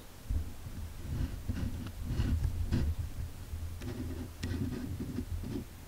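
Handling noise from hands gripping a camera and working its lens's manual focus ring, picked up by the camera's own microphone: an uneven low rumble with a few faint clicks.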